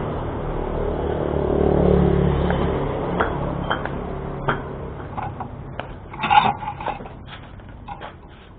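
Scraping and scattered knocks from renovation work, over a low rumble that swells and then fades in the first few seconds; the loudest knock comes a little past six seconds in.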